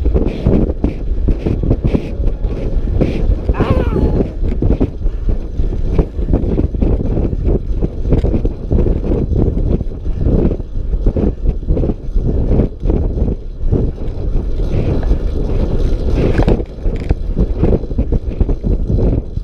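Wind rushing over a GoPro 4's microphone as a track bicycle is ridden fast around a velodrome, a loud, steady buffeting rumble mixed with tyre noise on the track surface.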